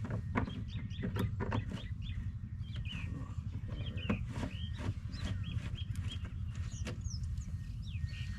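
Small birds chirping over and over above a steady low rumble, with scattered light clicks and knocks.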